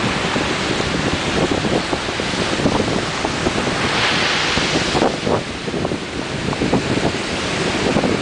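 Ocean surf breaking and washing in a steady roar of noise, with wind buffeting the microphone in uneven low gusts. A wave's hiss swells about four seconds in and fades about a second later.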